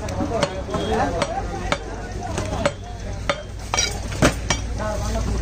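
Large butcher's knife striking a wooden log chopping block as beef is cut: a string of irregular sharp knocks, the loudest about four seconds in.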